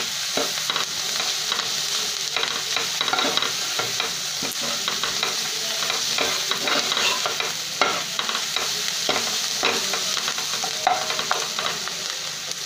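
Chopped onions sizzling in hot oil in a nonstick kadhai, stirred and scraped over and over with a steel spoon, giving a steady hiss broken by many short scrapes and clinks: onions being sautéed with spice powders until soft.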